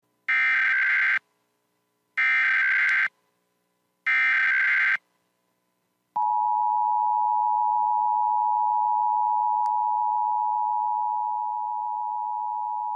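Emergency Alert System header: three short bursts of warbling digital data tones, each about a second long and a second apart, marking the start of an emergency alert. About six seconds in, the steady two-tone EAS attention signal begins and holds, dropping a little in level partway through.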